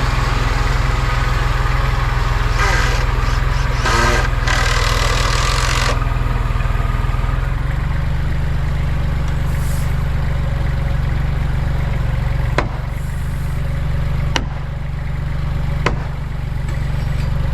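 Kubota L3800 tractor's diesel engine running steadily, its pitch shifting about eight seconds in. A noisy rush sounds over it for a few seconds near the start, and three sharp knocks come in the second half.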